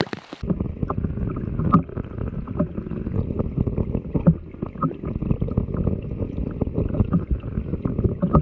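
Rain falling on a lake, heard through an underwater camera: a muffled low rumble dotted with many small ticks and pops as drops strike the surface. A brief open-air patter of rain comes just before the sound turns muffled.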